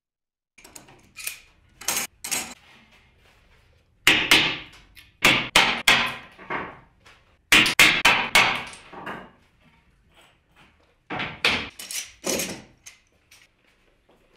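Hammer or mallet blows knocking a hardwood bench rail's mitred corner joint into place: runs of quick, sharp knocks on wood with short pauses between them.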